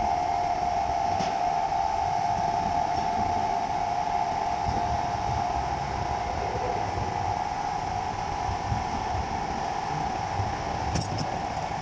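A steady, unchanging mid-pitched machine drone, with a few light clicks near the end.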